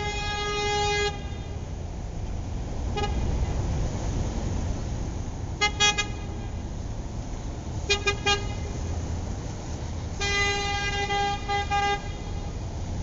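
Car horn honking: a held blast that ends about a second in, then short toots, one alone, then quick pairs and triplets, and about ten seconds in another longer blast broken into a few quick beeps. A steady low rumble runs underneath.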